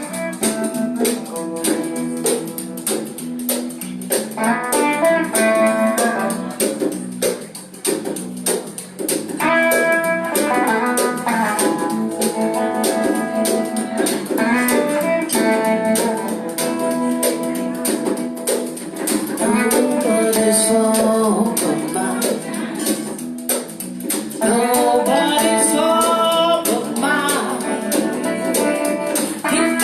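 Blues band playing: guitar carrying the melody over bass and drums with a steady beat.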